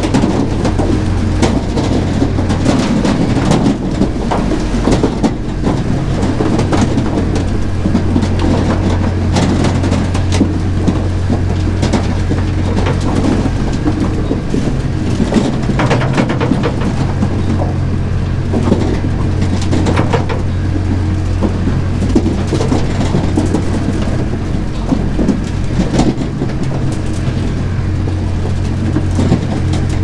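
Tractor-driven feeder wagon running: a steady low machine hum with constant irregular clattering and rattling from the mixing mechanism, as crimped maize grain pours in from a loader bucket onto the silage.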